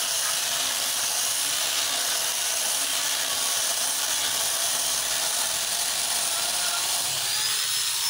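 Angle grinder converted to a chainsaw, its motor running steadily with the chain cutting lengthwise through a log.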